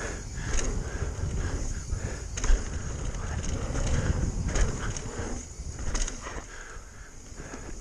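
Mountain bike rolling fast down a dirt trail: steady tyre and trail noise with a low rumble of wind on the camera microphone, and a few sharp clatters from the bike as it goes over bumps.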